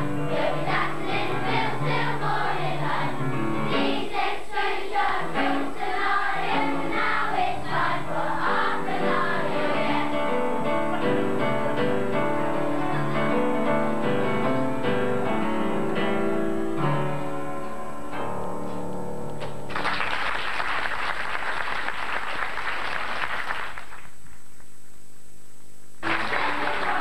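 Children's choir singing a rhythmic song with accompaniment, ending on a held final chord about two-thirds of the way through. Audience applause follows.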